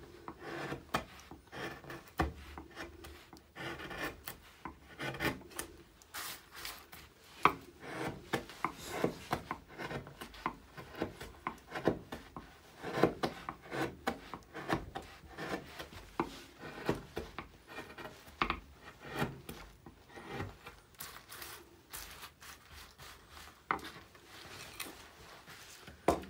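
Hand carving tool pushed by hand through alder wood, cutting and paring in a run of short, irregular strokes.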